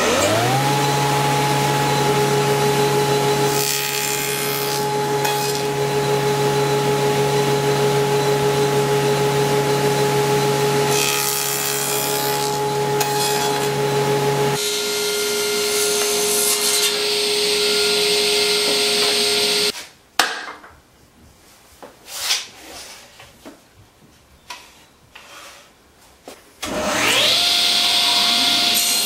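Table saw switched on and spinning up, then running steadily while it cuts through a wood workpiece, with rougher sawing noise twice. It shuts off about two-thirds of the way through, a few knocks of the wood being handled follow, and near the end the saw is started again and spins up.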